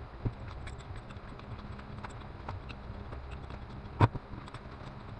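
Small metal clicks and taps of a spot cleaning gun's fittings being handled and tightened with an adjustable wrench as the gun is reassembled. A single sharp knock about four seconds in, as the wrench is set down on the work board.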